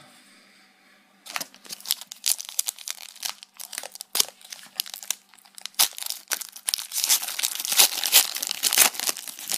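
Foil booster-pack wrapper crinkling and being torn open: a dense run of sharp crackles that starts about a second in and grows busier toward the end.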